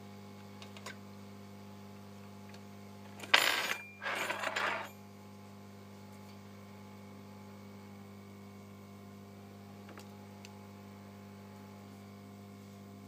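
Steady low electrical hum, broken between about three and five seconds in by two short scraping, clattering bursts of handling noise, the first the louder.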